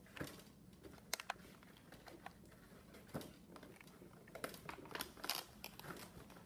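Scattered light clicks and taps of hands working twist ties loose on a toy blaster's packaging, busier in the second half.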